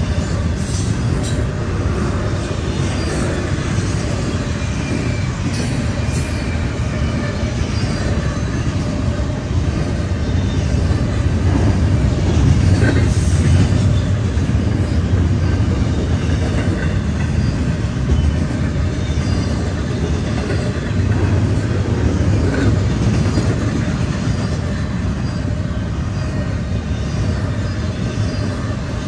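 Intermodal freight train cars rolling past: a steady, loud rumble of steel wheels on the rails with some clickety-clack.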